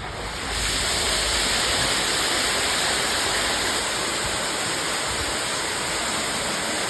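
Water rushing steadily through the water-ballast system of the Nerobergbahn funicular, the water-weight that drives the cars. It swells about half a second in and then holds level.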